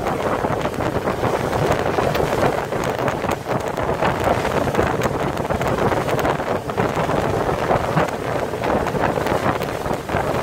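Wind buffeting the microphone aboard a small motorboat under way at sea, over the boat's steady running noise, with gusts coming and going.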